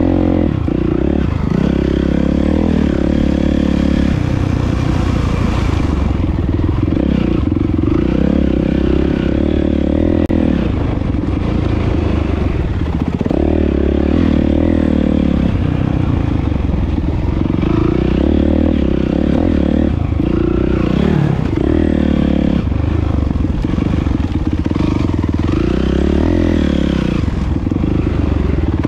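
Dirt bike engine heard from on board while being ridden. Its pitch rises and falls every few seconds as the throttle is opened and closed.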